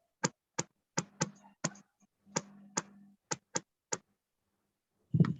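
Sharp clicking: about a dozen separate clicks at an uneven pace over about four seconds, with a faint low hum under some of them.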